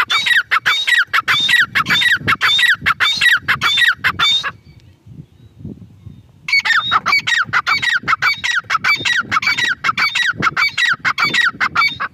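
Grey francolin calling: a fast string of shrill, repeated notes, each dropping in pitch, about two to three a second, in two bouts with a pause of about two seconds near the middle. It is labelled as a female's call.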